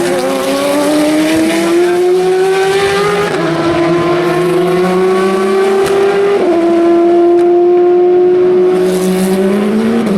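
Race car engines accelerating hard through the gears. The pitch climbs steadily and drops sharply at each upshift, about three and six seconds in, with another shift near the end.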